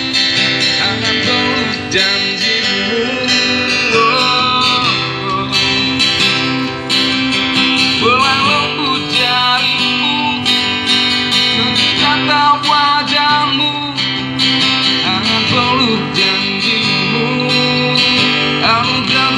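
Acoustic guitar strummed and picked, amplified through a loudspeaker, playing pop chords steadily, with a wavering melody line over them every few seconds.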